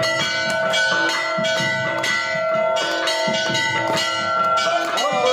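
Temple bells clanging rapidly and continuously during an aarti, their ringing overlapping, with low thuds underneath. Near the end a wavering pitched sound comes in as music starts.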